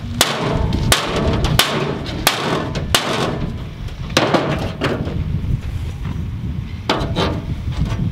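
A run of sharp knocks, about one every 0.7 s for the first three seconds, then a few scattered knocks later, over a steady low rumble.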